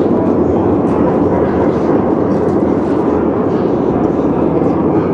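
Crowded-room chatter slowed down and soaked in reverb into a steady, low wash of indistinct voices, with no single word or event standing out.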